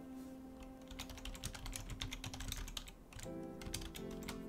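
Typing on a computer keyboard: a quick run of keystrokes for about two seconds in the middle, then a few scattered taps.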